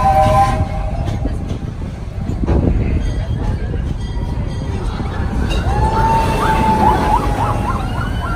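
A steam locomotive's chime whistle sounds a three-note chord that cuts off just after the start, over the steady rumble of the moving train. From about six seconds in, high wavering screams of riders on a passing roller coaster join in.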